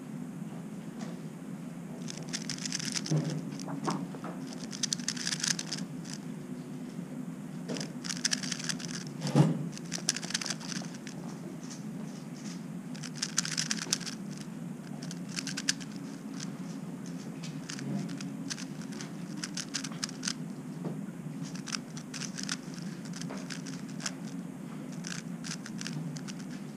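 A plastic 3x3 speedcube, a MoYu Weilong WR M, being turned blindfolded, making quick clicking, rattling layer turns in short bursts separated by pauses.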